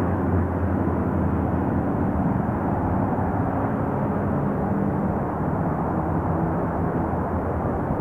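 Steady drone of road traffic, an even rumble with a faint engine hum that holds level throughout.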